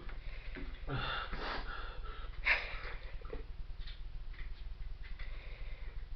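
A man sniffing and breathing hard, his mouth burning from a Scotch bonnet chilli, with a loud, short rush of breath about two and a half seconds in.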